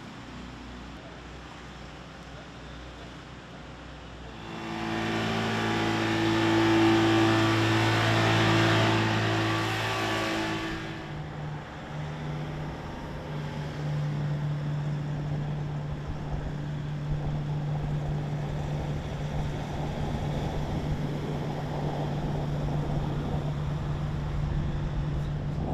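Motor vehicle engine running. It swells loud for about six seconds with a steady pitched drone, then settles into a steady low hum.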